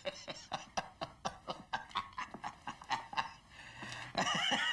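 Men laughing: a run of short, breathy chuckles, about four a second, that swells into a louder, higher laugh near the end.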